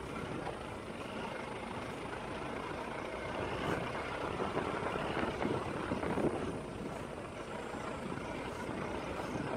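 Steady noise of a vehicle driving along an unpaved country lane: engine and tyre rumble with no distinct events.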